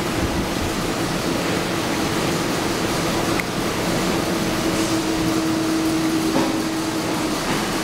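JT-HCLF-CP chain link fence machine running steadily, bending a wire into a zigzag spiral strand. It makes a constant mechanical hum with a steady low tone, which grows stronger about halfway through.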